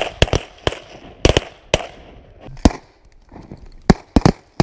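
Several hunters' shotguns firing in quick succession: about ten sharp shots, unevenly spaced, with a short lull around the middle and then three shots close together near the end.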